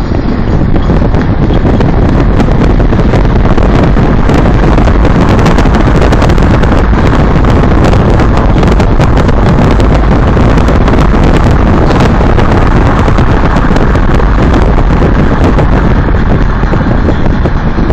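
Heavy wind buffeting on the microphone over the rumble of a vehicle driving on a rough dirt road. The sound is very loud and crackling, close to distortion.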